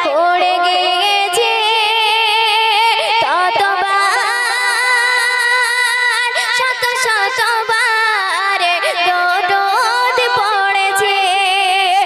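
A young female voice singing a Bengali Islamic gojol into a microphone, one continuous melodic line with wavering ornaments and long held notes.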